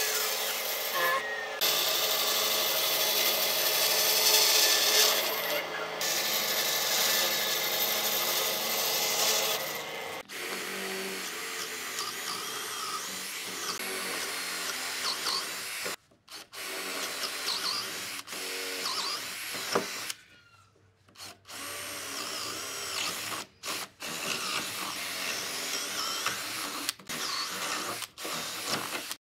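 A bandsaw blade cuts steadily through a thick wooden slab for about the first ten seconds. Then an electric drill with a long twist bit bores into the wood, starting and stopping several times.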